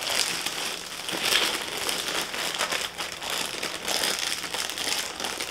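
Clear plastic poly bag crinkling and rustling steadily as hands pull and work at it to get a tightly packed pair of jeans out.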